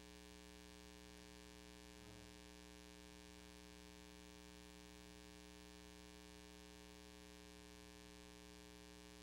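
Near silence: a steady electrical mains hum with no other sound.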